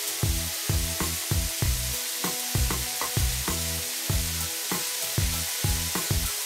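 Spraying water from car-wash nozzles: a steady hiss, over background music with a regular bass beat about twice a second.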